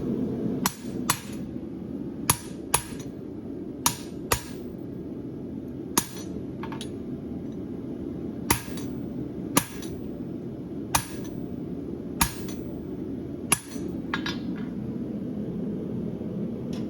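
Farrier's hammer striking hot horseshoe steel on an anvil: about fifteen ringing blows, often in quick pairs, with pauses of a second or more between them. A steady low rushing, typical of a running gas forge, lies under the blows.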